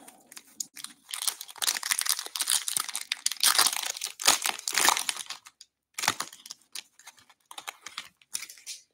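Wrapper of a 2022 Bowman Draft baseball card pack crinkling and tearing as it is ripped open by hand. The crinkling is densest in the middle and thins to a few lighter crackles near the end.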